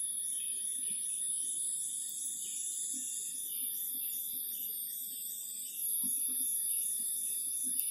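High-pitched insect chorus: a steady buzz with a pulsing rhythm of about three to four beats a second, growing louder about six seconds in.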